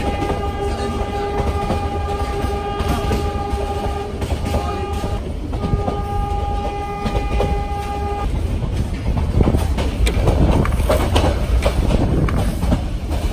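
Train horn sounding three times: a long blast of about four seconds, a short one, then another of about two and a half seconds. Beneath it the steady rumble and clatter of the train running on poorly kept track, a little louder after the horn stops.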